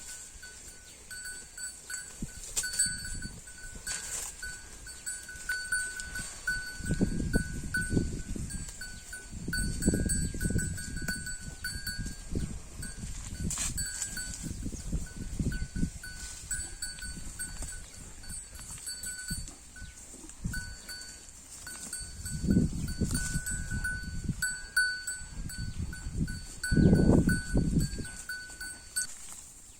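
Holstein Friesian cow grazing: several low, noisy bursts a few seconds apart as it crops and chews grass, over a thin, steady high ringing tone.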